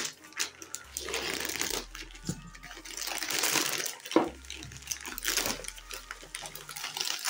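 Plastic bubble-wrap packaging rustling and crinkling in irregular bursts as it is handled and pulled open by hand.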